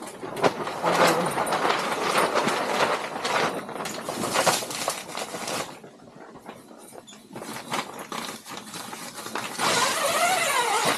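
Rustling and crinkling of a fabric cover being handled, dense for the first half, then fewer, quieter rustles.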